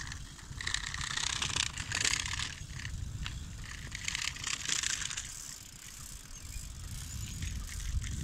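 Rumble and crunching of travel along a rough gravel road, with a steady low rumble and irregular gusts of hiss.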